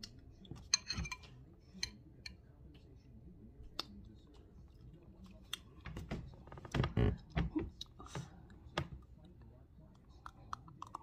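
Eating sounds: scattered small clicks from a metal spoon and wet mouth sounds of eating gumbo with rice, denser and louder about six to seven and a half seconds in.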